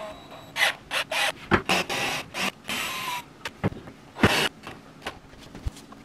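Irregular scraping and rasping strokes with a few sharp knocks in between: hand work on the camper's interior fittings.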